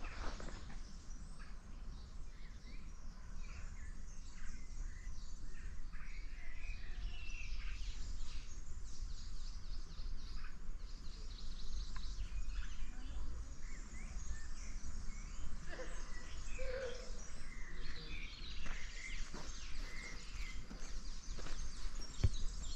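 Several songbirds chirping and singing in woodland, many short calls and trills throughout, over a steady low rumble.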